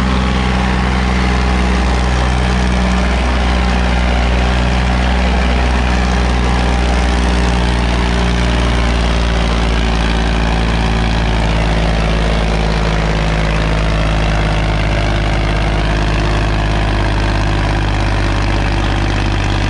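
Sonalika DI 35 diesel tractor engine running loud and steady under heavy load as it drags a disc harrow through the soil, pouring out black smoke.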